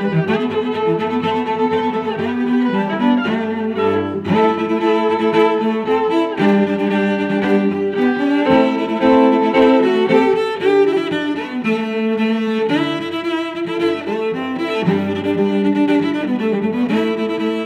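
Background music: bowed strings, violin and cello, playing a melody over lower sustained notes.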